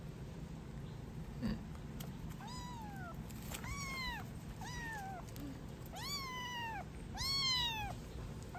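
A kitten mewing: five high, plaintive mews about a second apart, each rising briefly and then falling in pitch, the fourth and fifth the loudest. A single short knock comes before the mews begin.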